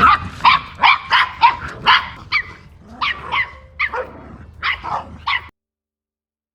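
Six-week-old Miniature Australian Cattle Dog puppies yapping: a rapid string of about a dozen short, high-pitched barks that cuts off suddenly near the end.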